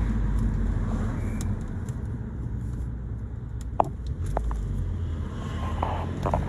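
Steady low rumble of a car on the move, with a few light clicks scattered through it.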